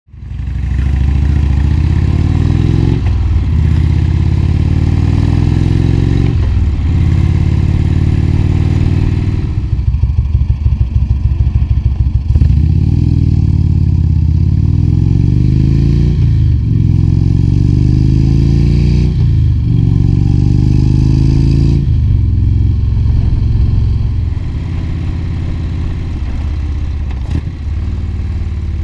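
2015 Indian Chief Vintage's Thunder Stroke 111 V-twin, through Rush Racing slip-on mufflers with 3.0" baffles, accelerating through the gears. The note climbs and drops back at each of several upshifts, then settles quieter at a steady cruise near the end. This is the exhaust sounding as it should, not the flat, tame note the bike sometimes falls into.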